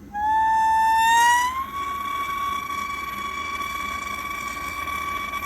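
Soldering torch lit and running, with a loud whistle that rises in pitch over the first second and a half, then holds steady over a hissing roar.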